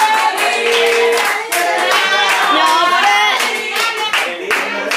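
A small group clapping and cheering, with several voices shouting and whooping over the claps.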